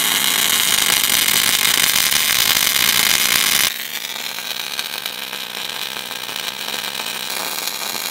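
Arc welding the last weld on a steel steering-linkage bracket: the arc gives a steady sizzling hiss, which drops suddenly to a quieter level at about three and a half seconds and carries on.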